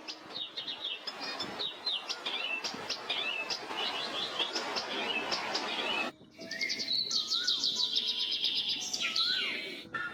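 Wild birds chirping and calling over a steady hiss. About six seconds in the sound breaks off and changes to different calls, including a fast high trill.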